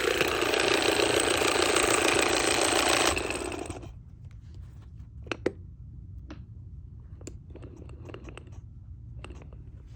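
Small electric motor running with a loud, even whir, switched off about three seconds in and winding down over the next second, followed by scattered light clicks.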